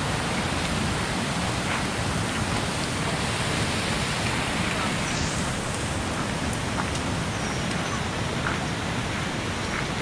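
A steady, even rushing noise with a fluctuating low rumble underneath and a few faint scattered ticks.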